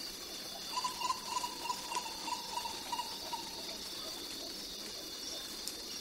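Jungle ambience: a steady, high-pitched drone of insects throughout. About a second in, an animal call repeats in even pulses, about three a second, for two to three seconds and then stops.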